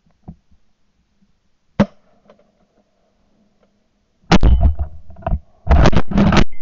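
Shotgun fire picked up close by a gun-mounted camera's microphone: a sharp crack about two seconds in, then loud blasts with a heavy low rumble from about four seconds in, several in quick succession near the end.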